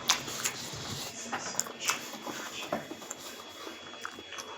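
Close-up eating sounds: chewing with short, sharp lip smacks and mouth clicks at irregular moments.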